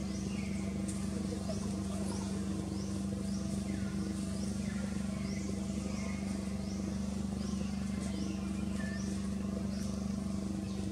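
Outdoor ambience: a steady low hum under short, high rising chirps repeating about once a second, with a few fainter calls in between.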